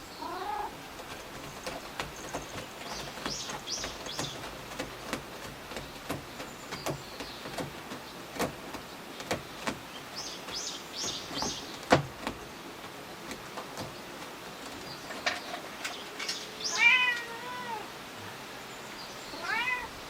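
Domestic cat meowing three times: a short meow just after the start, a longer, louder one about three-quarters of the way through, and another near the end. Light clicks and taps run through it, with one sharper knock about halfway.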